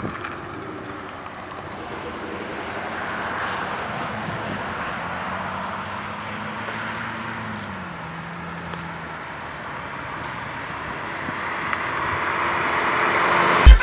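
Chevrolet Camaro SS V8 with a sport exhaust that keeps only the catalytic converter, the intermediate and rear mufflers removed, driving steadily. A low engine drone sits under a rushing noise, and the engine pitch drops a little about eight seconds in.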